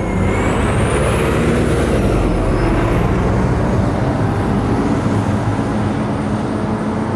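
Loud, steady vehicle noise, with a faint high whine that rises and then falls early on. It sets in suddenly and stays level throughout.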